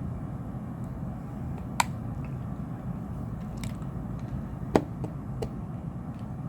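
Sharp clicks of the LG X Power 3's plastic back cover as it is pried with a spudger and its clips snap loose, two loud snaps and a few fainter ticks, over a steady low background hum.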